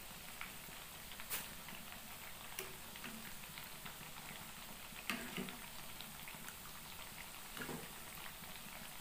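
Metal spoon stirring vegetables in coconut milk in an aluminium pot, knocking lightly against the pot a few times, over a faint steady bubbling of the pot heating on a gas burner.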